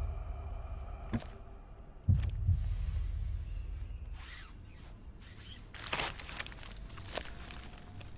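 A deep double thump like a heartbeat about two seconds in, then rustling of cloth gift wrapping being pulled open, in several bursts over about three seconds.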